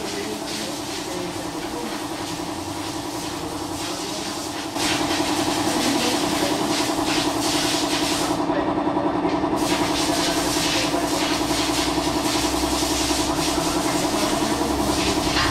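Steady mechanical drone with a hiss over it, a machine running continuously; it gets louder about five seconds in and then holds steady.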